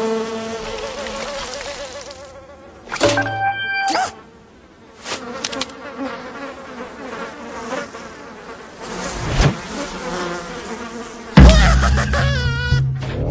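Cartoon sound effects of flies buzzing, mixed with short cartoon noises, and a sudden loud low sound near the end.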